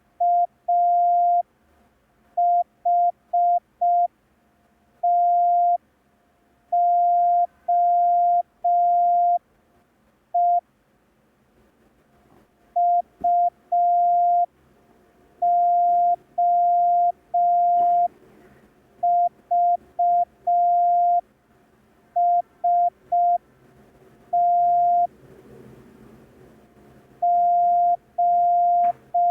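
Morse code practice tone, a single steady pitch keyed on and off in dots and dashes, sending groups of letters for copying practice.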